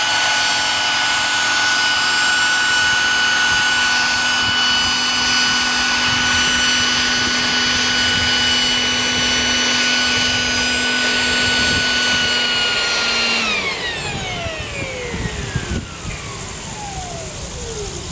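Radio-controlled scale MD900 helicopter's drive and rotors running with a steady whine, then about thirteen seconds in the motor is cut and the rotors spool down, the whine falling steadily in pitch and getting quieter.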